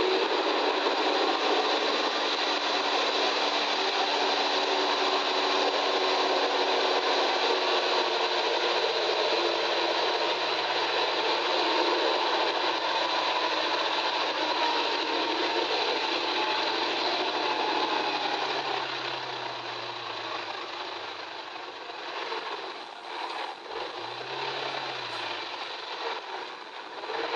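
Tracked military tank driving off-road: its diesel engine and running gear making a loud, steady noise that eases off over the last several seconds.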